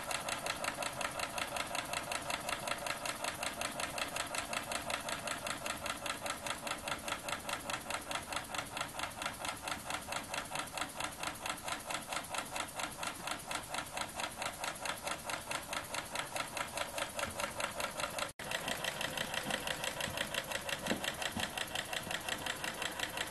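Small rotary valve model steam engine running on compressed air, its single cylinder puffing and clicking in a steady, even rhythm of about five beats a second.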